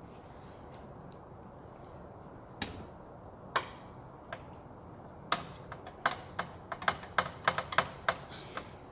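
Sharp clicks and taps of hand work on an Alfa Romeo Spider 939's hood flap motor as it is fitted back in. A few come scattered, then a quick irregular run of about a dozen.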